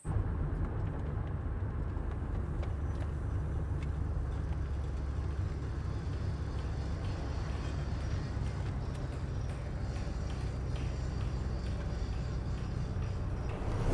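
Steady low rumble of a car driving, heard inside the cabin: engine and road noise. It starts abruptly.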